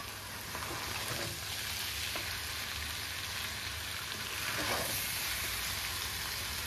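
Dry chicken fry sizzling steadily in an uncovered pan, with a spatula stirring and scraping through it a few times; the thickened masala is starting to stick to the pan.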